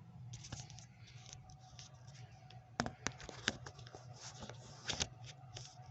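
Faint handling noise of a phone camera being repositioned: light rustling with scattered sharp clicks and knocks, the clearest about three and five seconds in.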